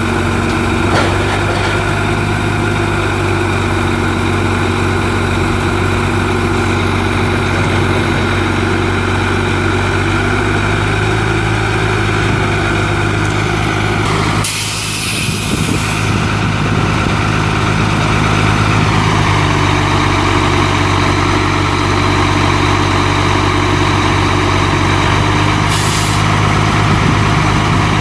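Idling Cummins 8.3-litre inline-six turbo diesel in a Ford F800 truck, running steadily. A loud hiss of released air, typical of the air-brake system, comes about halfway through, and a shorter one near the end.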